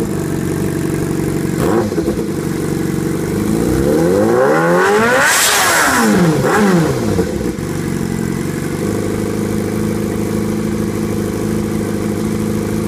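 Warm Yamaha R6 inline-four sportbike engine idling through a Coffman shorty slip-on exhaust. It is blipped briefly once, then revved up and back down to idle around the middle.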